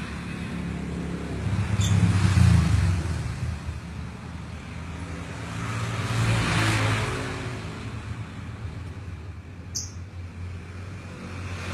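Road traffic passing, two vehicles swelling up and fading away one after the other. Two brief, high chirps come through, one about two seconds in and one near the end.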